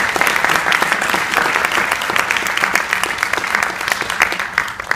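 Audience applauding: many hands clapping in a dense, steady patter that starts to die away at the very end.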